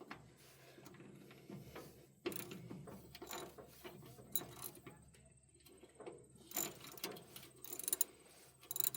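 Irregular metal clicking and scraping of hand tools working on a round baler's pickup, as a guard is loosened to get at the teeth.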